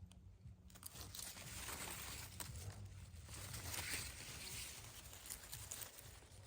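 Rustling and soft crackling of hazel leaves and branches being brushed and handled, uneven and busiest in the middle.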